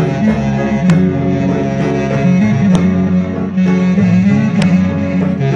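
Live band music played through loudspeakers for dancing: sustained melody lines over a strong bass, with a sharp beat about every two seconds.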